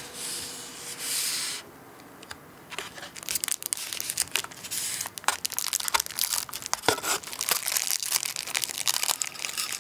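Thin clear plastic film over a polystyrene tray of natto being pulled back and crumpled in the fingers: a rustling hiss for the first second or so, then a dense run of crinkling crackles.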